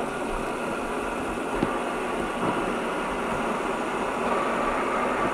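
Many ball-bearing fidget spinners whirring together on a wooden table, a steady hum that builds slightly, with a few light clicks as more are flicked into spin.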